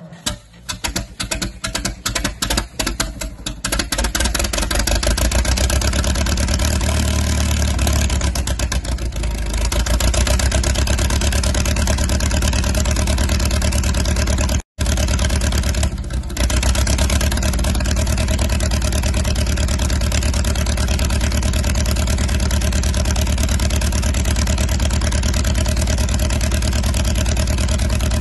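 International Harvester T-9 crawler dozer's engine cold-starting at minus 30 °C. It fires raggedly for the first few seconds, then settles into a steady run and grows louder about ten seconds in.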